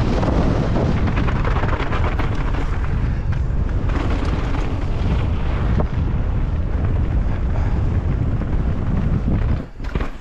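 Wind buffeting the microphone of a camera riding along on a downhill mountain bike at speed: a steady heavy rumble and hiss with scattered knocks. It drops off abruptly about half a second before the end.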